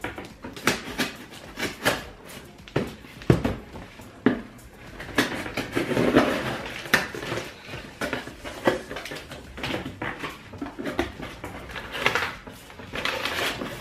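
A cardboard parcel being opened by hand: a knife slitting the packing tape, then the flaps and the packing paper inside rustling and crinkling, with many irregular clicks and scrapes.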